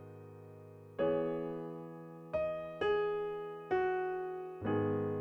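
Background music: slow, sparse piano notes, each struck and left to ring and fade.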